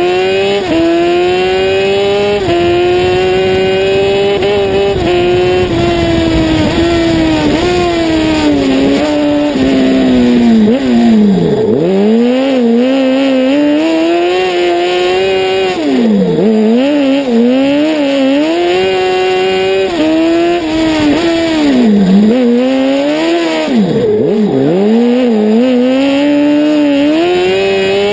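Honda 600 engine of an Ape Proto racing prototype, heard from on board while lapping a circuit. The revs climb steadily through the gears and drop sharply several times as it slows for corners, then pick up again.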